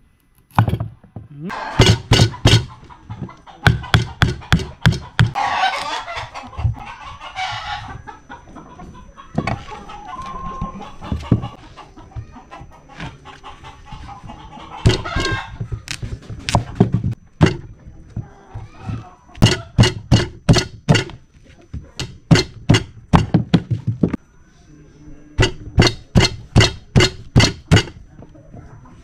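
Large knife chopping a hard squash on a wooden board: sharp knocks in quick runs of several strokes, with pauses between. A chicken calls in the background about five seconds in.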